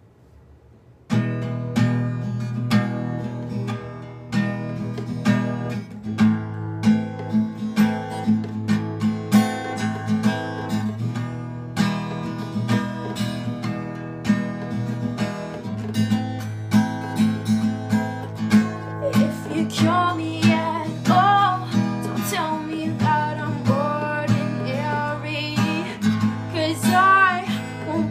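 Cutaway acoustic guitar strummed in a steady rhythm, starting about a second in; a woman's singing voice joins it about twenty seconds in. Recorded through a phone's microphone.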